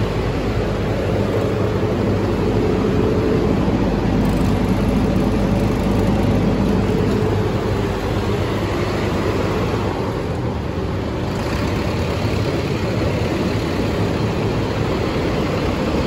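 Diesel generator set in a red soundproof canopy running steadily, its engine hum held at constant speed.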